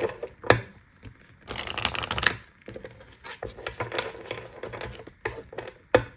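A deck of oracle cards being shuffled and handled by hand: a dense run of rapid card flicks about a second and a half in, with scattered taps and slides of cards around it.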